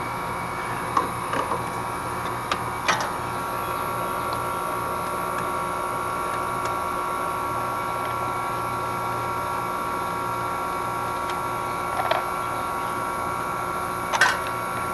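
Outdoor condensing unit of an R-22 heat pump running steadily, a constant hum of compressor and fan with a steady whine over it. A few light clicks and taps come through as gauge hoses are fitted, twice near the start and twice near the end.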